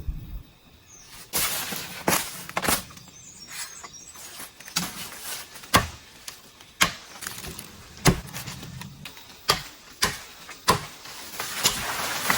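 A tool striking bamboo: a run of sharp, irregular knocks, roughly one a second.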